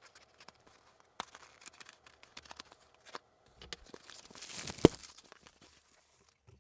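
A shipping box being opened by hand: tearing and crinkling of packaging, with scattered small clicks and a louder stretch of tearing about four to five seconds in that ends in one sharp knock.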